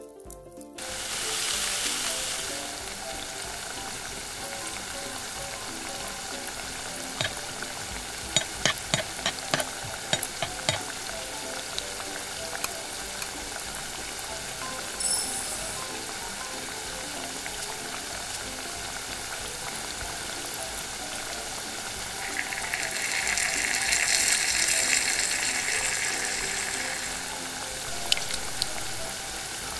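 Hot oil sizzling in a tiny iron wok, rising suddenly about a second in as chopped ingredients drop in, then a steady frying hiss. A run of small clicks comes in the middle, and the sizzle grows louder for a few seconds near the end.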